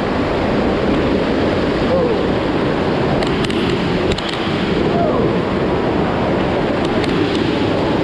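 Steady rush of water pouring down a waterfall cascade, loud and unbroken, with faint voices of people behind it.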